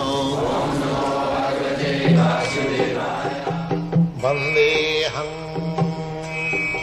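Indian devotional music: a voice chanting over a low drone, joined about two seconds in by repeated plucked-string and drum strokes.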